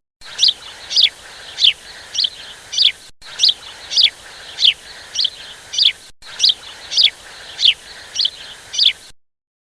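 A bird calling over and over, each call a short high note sliding down in pitch, repeated about every half second, stopping near the end.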